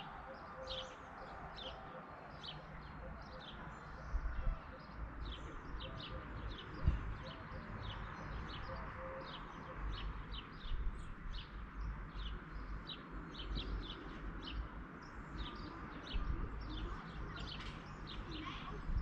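Small birds chirping steadily in short, high chirps, about two a second, over a low rumble with a few dull thumps.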